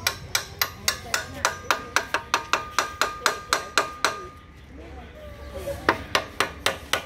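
Claw hammer striking the end of a motorcycle's front axle, knocking it through the hub to free the wheel: a quick run of sharp metal-on-metal blows, about four a second, with a ringing note. After a short pause a second, shorter run of blows comes near the end.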